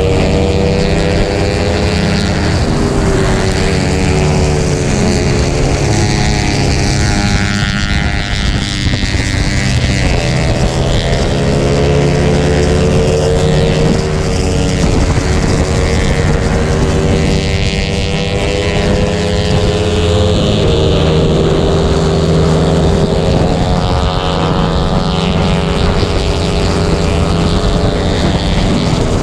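Motorcycle engine at speed, picked up by a camera mounted on the bike, its pitch climbing and dropping repeatedly as the rider accelerates and shifts through the laps, with wind rushing over the microphone.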